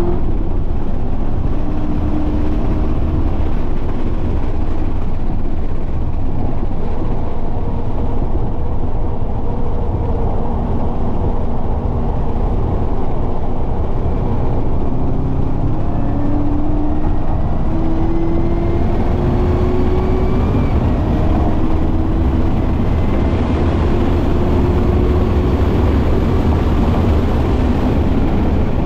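Camaro ZL1 1LE's supercharged 6.2-litre V8 at full throttle on a race track, its pitch climbing slowly several times and dropping back with the shifts and braking, over a steady rush of wind and road noise.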